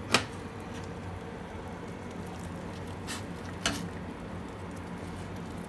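A stainless steel pot lid clinks once right at the start, then a pot of soup simmers on the stove over a steady low hum, with two light taps around three seconds in.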